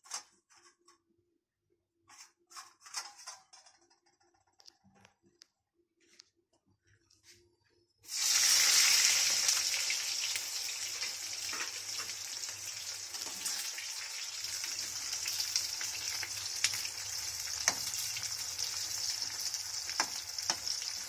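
A few faint clinks and knocks, then about eight seconds in, eggplant slices hit hot oil in a steel kadhai and start deep-frying with a sudden loud sizzle. The sizzle eases a little and carries on as steady frying.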